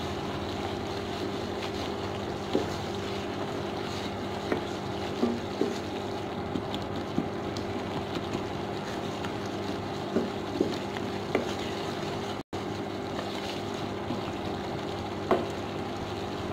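Steady hum of an induction cooktop running, with occasional light knocks and scrapes as a wooden spatula stirs thick tomato masala in a steel pan.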